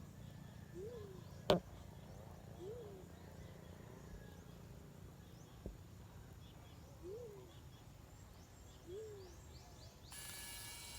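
Faint, low coos of a black-chinned fruit dove, four single notes that each rise and fall, about two seconds apart with a longer gap in the middle. A sharp click about a second and a half in is the loudest sound, and a hiss comes in near the end.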